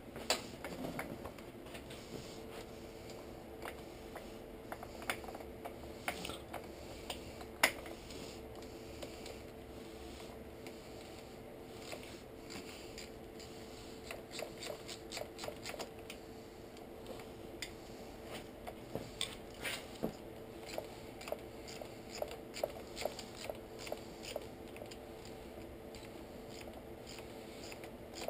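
Metal hand tools clicking and clinking against a motorcycle engine as a wrench is worked on it: scattered sharp taps, busier in the second half, over a steady low hum.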